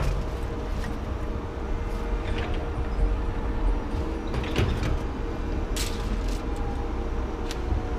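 Steady low vehicle engine rumble with a constant hum, broken by a few sharp knocks and rattles.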